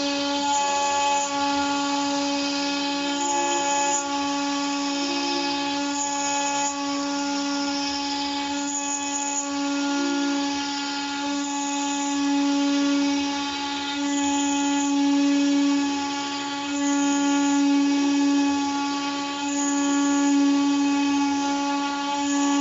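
CNC router spindle cutting a board, a steady whine with many overtones that swells and eases every few seconds as the bit moves along its cutting path.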